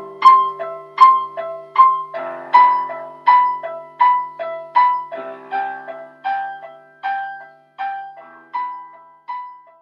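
Slow solo piano music: single struck notes repeating at an even pace, about one every three-quarters of a second, over low held notes that drop away about halfway through. The notes grow quieter toward the end.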